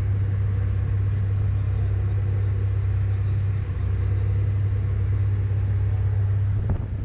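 Car ferry's engines running with a steady low hum, heard from the open deck while the ship waits to get under way.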